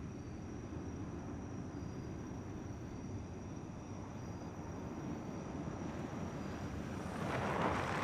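Night-time outdoor ambience: a steady low rumble with a thin, high insect trill above it. A rushing noise swells up near the end.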